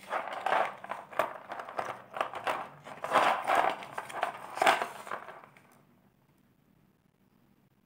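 Rustling and small clicks of a rudraksha bead necklace with metal bead caps and its cardboard price tag being handled, stopping about five and a half seconds in.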